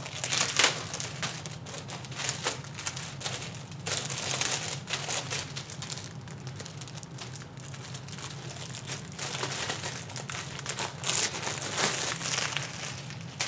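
Clear plastic sleeve crinkling and rustling as a flat plastic panel is worked out of it by hand, in irregular bursts of crackle.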